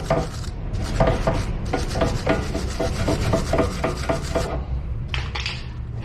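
Hand scrubbing strokes, about three a second, on the metal pad-slide surfaces of a brake caliper bracket, cleaning off dirt; the scrubbing stops about two-thirds of the way through, followed by a couple of lighter scrapes.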